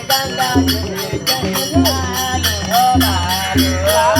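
Indian devotional folk music: a gliding, wavering melody over a steady beat of deep bass notes, with jingling, shaker-like percussion on each beat.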